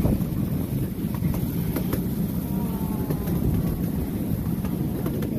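Miniature railway train running along the track, heard from on board its open carriage: a steady rumble of wheels on rails with a few faint clicks.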